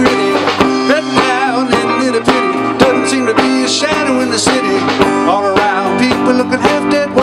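Live rock band playing: electric guitars and a drum kit keeping a steady beat of about two hits a second.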